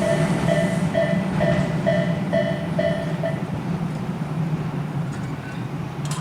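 Level crossing's electronic warning bell, of the Tobu Isesaki Line type, ringing about twice a second over the fading low rumble of a Tobu 8000-series train running off. The bell stops a little over three seconds in, and a single click follows near the end.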